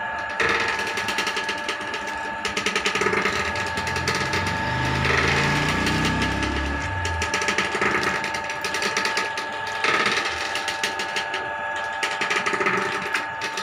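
Wooden oil press (chekka ganuga) running: the pestle turning through crushed oilseed paste in a steel bowl, with a steady machine whine and a dense, fast grinding clatter. A lower droning sound rises and falls in steps for a few seconds about four seconds in.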